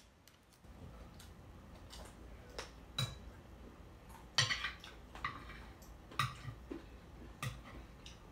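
Metal fork clinking and scraping against a plate while eating, in a run of separate clicks and short scrapes, the loudest and longest scrape about four seconds in.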